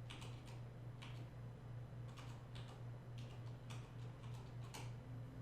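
Corsair Strafe RGB mechanical keyboard keys being pressed one at a time: faint, irregular clicks, about a dozen, over a steady low hum.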